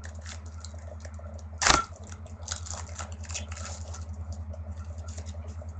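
A foil trading-card pack wrapper crinkling as it is torn open, with one sharp rip about a second and a half in, over a steady low hum.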